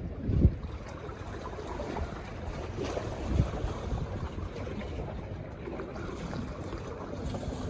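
Wind buffeting the microphone over the wash of sea surf, with two stronger gusts, about half a second and three and a half seconds in.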